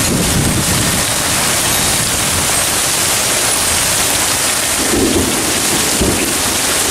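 Heavy thunderstorm rain pouring down in a steady hiss, blown sideways by the wind. Low rumbles of thunder rise just after the start and again about five seconds in.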